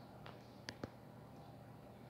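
Near silence with a faint room hiss, broken by a soft click and then two sharp clicks in quick succession just under a second in.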